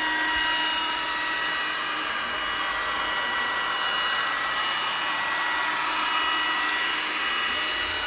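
xTool D1 Pro laser engraver tracing its frame: a fan runs with a steady whirring hiss and a high, even whine, and the laser head travels across the bed.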